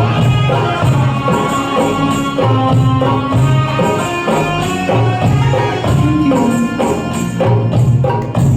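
Instrumental music with a steady beat, low bass notes and regularly repeating tambourine-like jingles; no singing.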